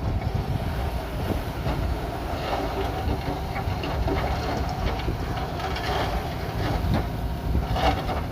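Crawler bulldozer's diesel engine running steadily under a low rumble, with irregular metallic clanking and squeaking from its steel tracks from a couple of seconds in.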